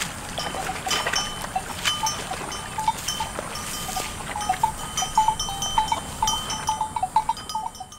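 Bells hung on water buffaloes clanking irregularly as the animals wade off, the clanks coming thicker in the second half.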